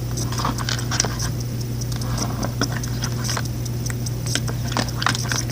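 Wet, sticky slime mixture being mixed: irregular small squelching clicks, over a steady low hum.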